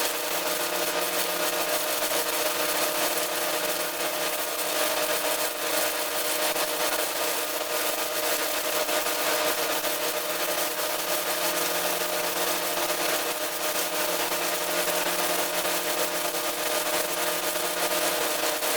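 Stick-welding arc burning steadily as a 1/8-inch 7018 electrode runs at about 120 amps, a continuous crackle and hiss with a low steady hum underneath, laying the first weld pass on a preheated shaft.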